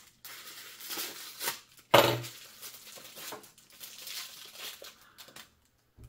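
Plastic packaging crinkling and tearing as a cheap balisong trainer is unwrapped, with one louder crackle about two seconds in.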